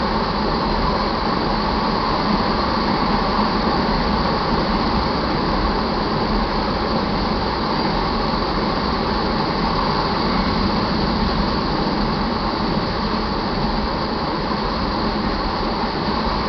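Crude oil tank cars of a freight train rolling past, a steady loud rumble of steel wheels on rail.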